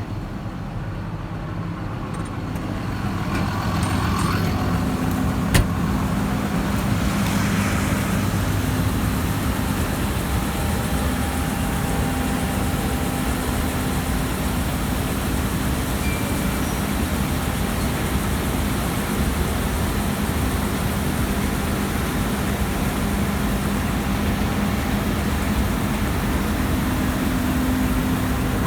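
Diesel farm machinery running steadily, getting louder about four seconds in and then holding even, with one sharp click about five and a half seconds in.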